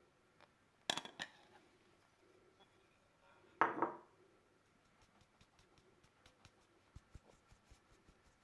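A fine-mesh metal sieve clinking against a glass mixing bowl a few times, the loudest about four seconds in, then tapped lightly and rapidly, about five taps a second, to shake flour through it.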